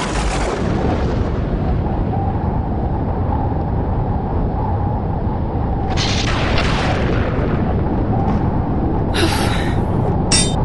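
Loud, steady rumbling noise that starts suddenly, with a few short, bright, clinking bursts on top of it about six, nine and ten seconds in.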